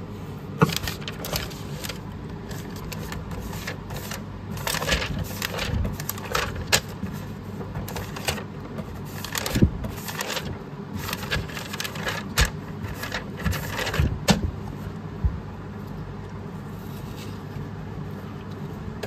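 Handling noise of small objects: a quick, irregular run of clicks and jingles that stops a few seconds before the end, over a steady low hum.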